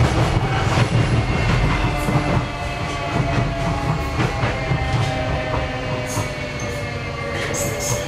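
Docklands Light Railway train running on its track, heard from the front of the car: a steady low rumble under a whine of several tones, with wheels clicking over rail joints and points. There are brief high squeals near the end.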